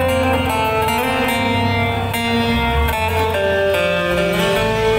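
Live band music led by an acoustic guitar, with a low bass line moving under it.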